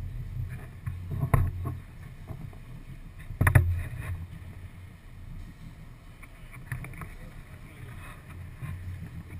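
Regal powerboat underway in choppy water: a steady low rumble, with the hull slapping the waves in two heavy thumps, about a second in and again about two seconds later, the second the louder.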